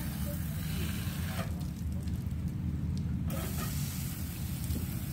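Outdoor beach shower spraying water in a steady hiss that cuts off suddenly about three seconds in, over a low wind rumble on the microphone.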